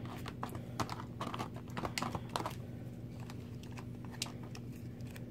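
Quick small clicks and taps of hands handling a small plastic toy package, dense for the first couple of seconds and then sparse, over a steady low hum.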